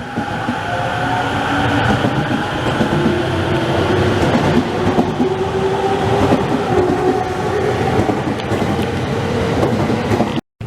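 Electric commuter train running, with a steady rumble and wheel clatter and a faint motor whine slowly rising in pitch as it gathers speed.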